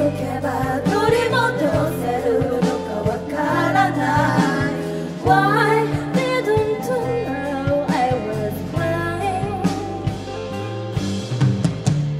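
Women singing a pop song live into handheld microphones, over instrumental accompaniment.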